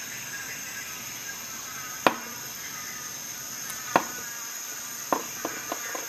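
Sharp metal clicks from handling a multi-tool's jigsaw-blade holder while a T-shank blade is fitted into it: three distinct clicks about two seconds apart, then a few lighter ticks near the end, over a steady high hiss.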